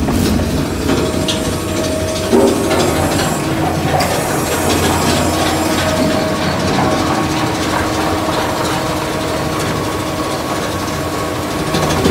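Model 760 plastic film shredder running under load, shredding plastic film: a loud, steady mechanical noise with a low hum and a constant rattle of small clicks.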